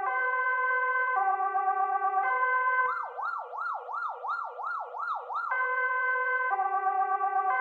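Swedish police siren sounding an alternating high-low two-tone, which about three seconds in switches to a fast rising-and-falling wail of roughly seven sweeps, then returns to the two-tone.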